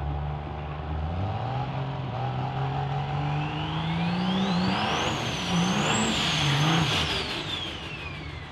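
Turbocharged diesel drag truck launching and accelerating hard, its engine note climbing with breaks at the gear changes while a high turbo whistle rises over it. Near the end it lets off and the whistle winds down.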